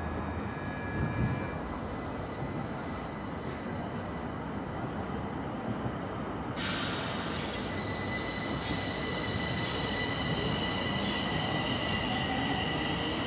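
Stockholm metro train running. About two-thirds of the way through, a sudden high hiss and steady squealing tones set in, typical of wheels squealing on the rails, and the sound grows a little louder.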